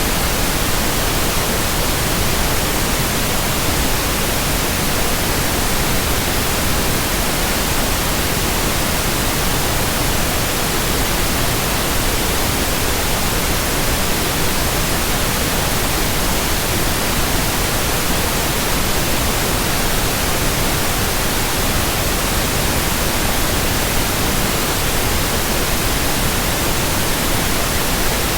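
Steady white-noise hiss, even across all pitches, with no rhythm, tone or change.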